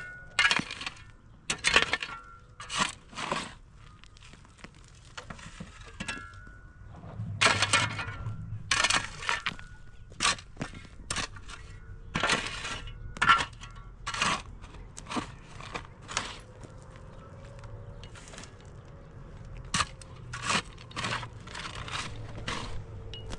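Irregular clinks, cracks and knocks of hard material being handled, some strokes drawn out like scrapes, in clusters with short gaps.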